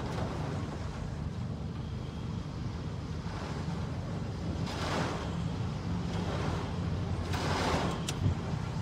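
Vehicle driving through heavy rain on a flooded road: steady low rumble of tyres on wet tarmac with a hiss of water. Two louder swishes of water spray come about five seconds in and again near the end, as cars pass close.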